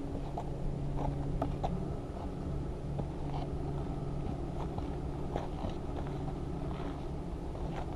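Footsteps on a paved and gritty trail, irregular light scuffs and clicks, over a steady low hum.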